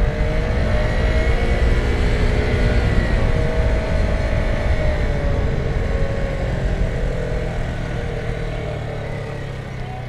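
Vespa scooter's engine running under way over a heavy low rumble, its pitch rising and dipping. The engine note drops and the sound eases off over the last few seconds as the scooter slows down.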